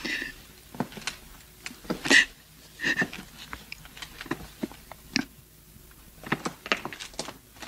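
A woman crying quietly, with short sobs and sniffs, among scattered small clicks and knocks.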